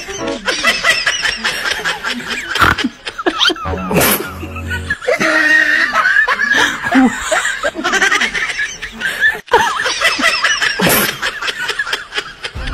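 Snickering, giggling laughter in several bursts, with brief breaks between them.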